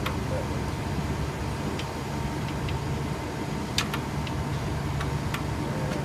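Steady low engine hum of a van idling, with a few sharp light clicks over it, the loudest about four seconds in.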